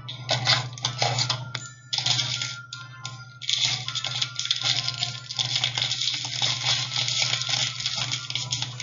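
Plastic toy packaging being handled, with crinkling and small plastic pieces clicking and clinking against each other, in irregular bursts that thicken after about three and a half seconds. Background music plays underneath.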